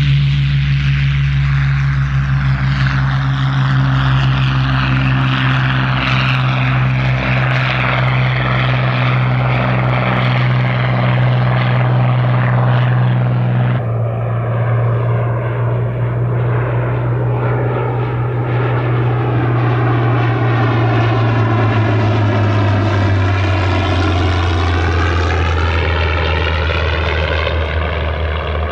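Hawker Hurricane Mk.I's Rolls-Royce Merlin III V12 engine running at high power with a steady deep drone as the fighter lifts off and climbs away. The engine note drops lower about halfway through and sinks again near the end as the aircraft passes.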